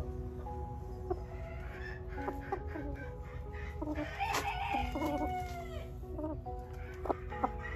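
Backyard chickens clucking, with a rooster crowing once about halfway through, over soft background music.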